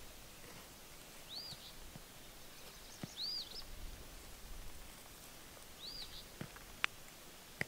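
A bird calling three times, about two seconds apart, each call a short high chirp that rises and falls, followed by a quick second note. A few sharp clicks sound near the end.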